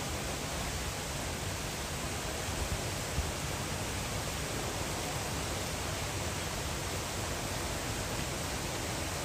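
Steady, even hiss of rain falling, with a couple of soft knocks about three seconds in.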